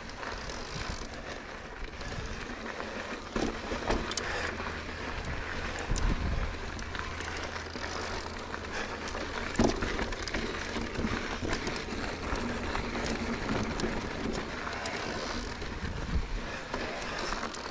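Mountain bike rolling fast down a rocky dirt trail: tyres crunching over loose gravel and rock with frequent sharp clicks and rattles of the bike, over a steady low rumble.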